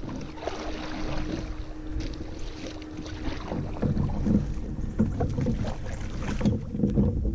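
A double-bladed kayak paddle is stroking through the water, its blades dipping and splashing on alternate sides at a steady paddling pace. Wind rumbles on the microphone underneath. A faint steady hum is heard for the first few seconds.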